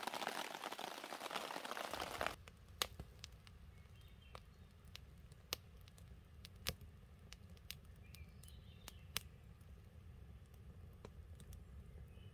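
Rain pattering on a hammock rain tarp, cutting off suddenly about two seconds in. A quieter stretch follows: scattered single sharp ticks like drops landing on the tarp, over a low steady rumble, with a few faint chirps.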